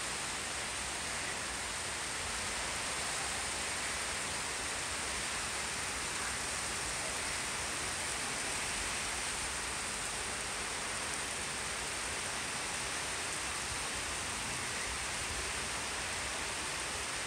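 Heavy rain pouring down steadily onto leaves and a wet concrete rooftop, a constant even hiss.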